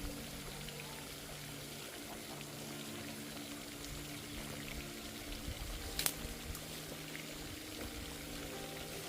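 Water pouring and trickling steadily. A single sharp click comes about six seconds in.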